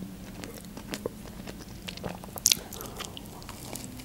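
Close-miked mouth sounds of someone chewing and crunching toasted sandwich bread, with scattered small crunches and one sharper, louder crunch about two and a half seconds in.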